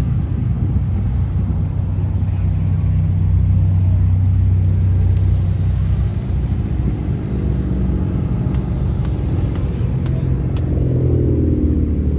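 Car engines rumbling steadily and loudly as vehicles drive past. Near the end one engine's pitch sweeps as it passes, and a few sharp clicks come just before that.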